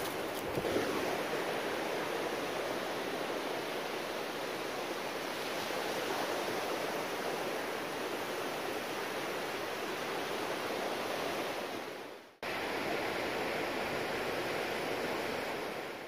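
Ocean surf breaking and washing on a beach: a steady rushing noise that cuts out briefly about twelve seconds in.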